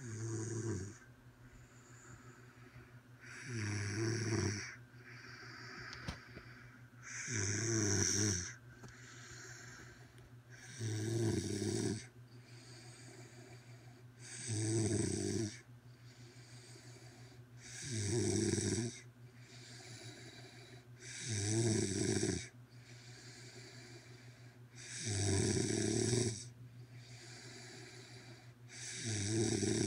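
A woman snoring loudly in a steady rhythm: a rough, low snore about every three and a half seconds, nine in all, each lasting about a second, with quieter breathing between.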